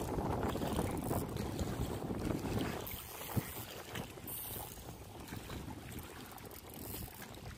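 Wind buffeting the microphone in uneven gusts, with one sharp click about three and a half seconds in.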